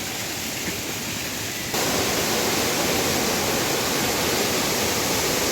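Steady rush of a waterfall, an even hiss-like roar that jumps suddenly louder just under two seconds in and then holds steady.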